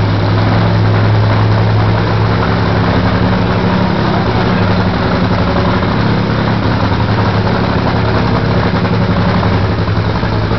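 NHRA nitro Funny Car's supercharged Hemi V8 running at a loud, steady idle during a pit warm-up.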